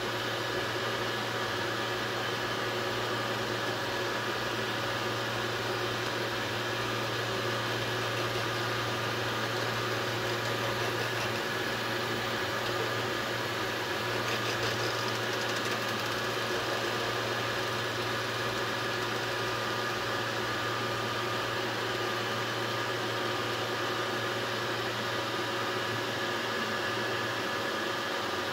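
eMotion Tech 3D printer running, a steady machine hum and whir from its fans and motors with no breaks or changes in level.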